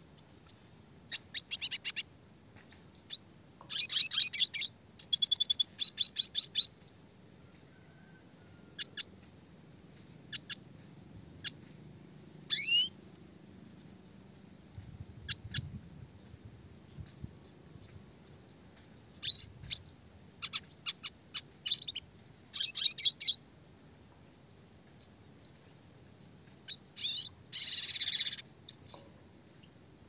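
Red siskin singing: scattered short, high chirps and calls broken by fast rolling trills, with the densest rapid runs a few seconds in, around five to six seconds in, and again near the end.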